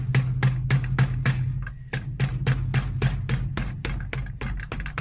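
Cobbler's hammer tapping quickly and repeatedly on a freshly fitted leather heel and sole of a shoe on a last, about five or six sharp blows a second, with a brief pause about two seconds in. A steady low hum runs underneath.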